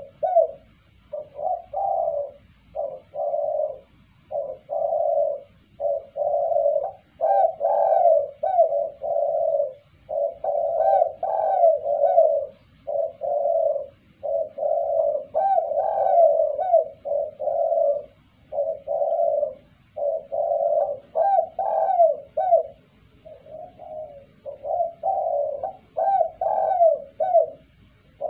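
Spotted dove cooing over and over: a long series of low, rounded multi-note coo phrases separated by short pauses.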